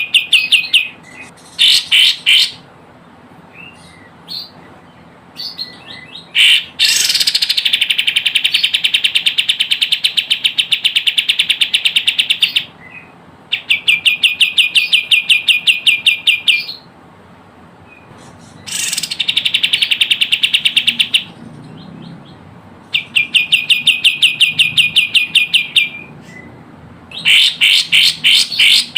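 Kapas tembak bulbul song used as a trapping lure: long runs of rapid, even, chattering trills, each lasting a few seconds and separated by short pauses, with shorter bursts of notes at the start and near the end.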